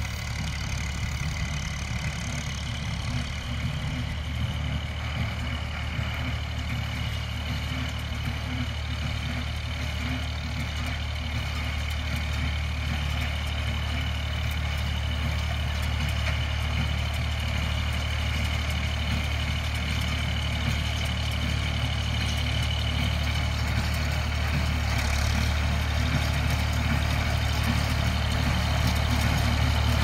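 Bolinder-Munktell tractor engine running steadily as it pulls a Rivière Casalis medium-pressure baler through windrowed hay, growing louder as it approaches.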